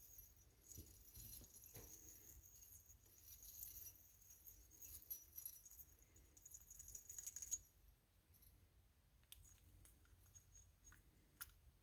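Faint scratching and light metallic clicking of small wire carb-cleaning picks being worked through a small-engine carburetor's passages to free up gummed deposits. The scratching runs for about the first seven seconds, then only a few scattered clicks follow.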